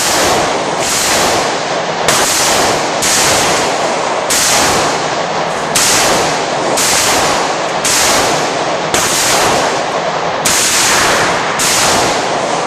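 Repeated gunshots at a shooting range, roughly one a second, each shot's echo running on into the next so the sound never dies away between them.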